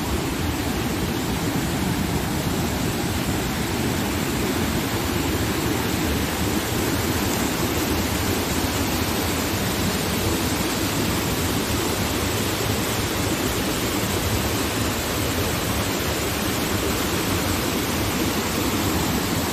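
River water rushing and churning through the mill race beside the water wheels, a loud, steady rush that does not change.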